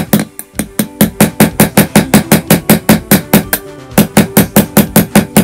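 Small hammer tapping a metal pin punch quickly and lightly, about six taps a second, driving a stiff link pin out of a watch bracelet. The pin is gradually moving. The taps pause briefly about half a second in and ease off near the end.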